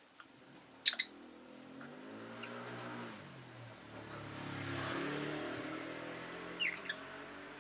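Rosy-faced lovebirds giving short, sharp chirps, once about a second in and again near the end, the loudest sounds here. Under them a passing vehicle's engine hum swells and fades, with tyre hiss.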